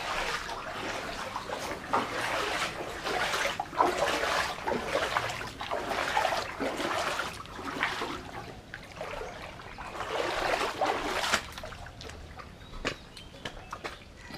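Floodwater splashing and sloshing in irregular surges, which die down about eleven seconds in, leaving a few faint clicks.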